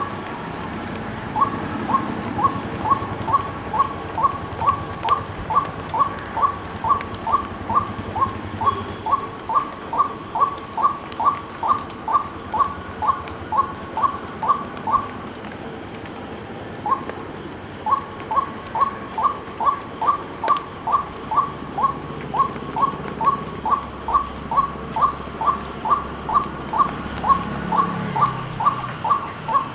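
White-breasted waterhen calling: a long series of short, clipped notes at one pitch, about two a second. The series breaks off about halfway through for a couple of seconds, gives one lone note, then resumes at the same pace.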